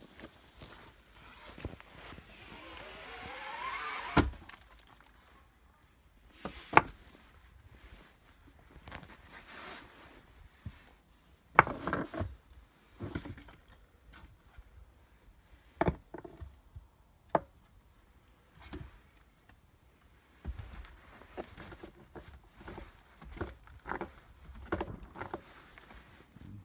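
A 400 kg neodymium fishing magnet on a rope being lowered down a concrete well shaft, knocking sharply against the walls at irregular intervals, with rope scraping in between. About two seconds in a rising rush builds up and ends in the first sharp knock.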